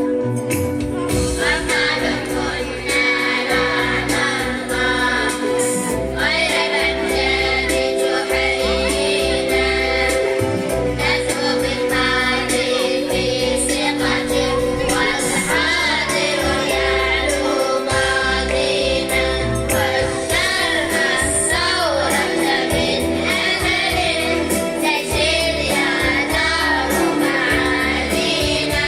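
A nasheed group of voices singing a patriotic song together over instrumental backing, with held chords, a bass line and a steady beat.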